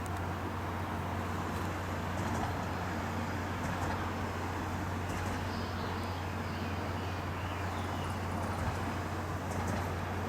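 Diesel engine of a KiYa 95 track-inspection railcar running with a steady low hum, unchanged throughout, with a few faint high chirps over it.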